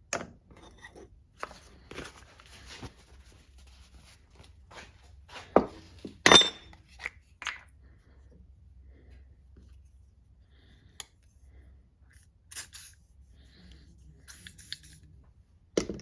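Scattered short scrapes and clicks from hand work on an old pocket knife, such as sanding strokes and handling the knife and paper. The loudest scrapes come about midway, with a quieter stretch after them.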